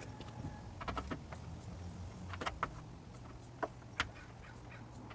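A few light, sharp clicks and taps as small parts inside a 2007 Toyota Matrix's door handle assembly are worked loose by hand, over a low steady hum.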